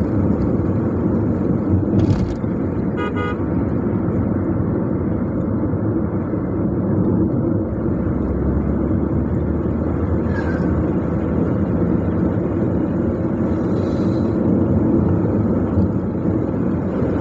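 A car driving, its engine and tyres giving a steady low rumble, with a horn sounding a quick run of short toots about three seconds in.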